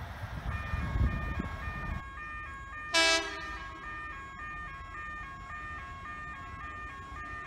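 Railway level crossing warning alarm sounding a steady tone that alternates between two pitches. About three seconds in, the approaching OSCAR electric train gives one short toot of its horn, the loudest sound. Under the first two seconds is a low rumble.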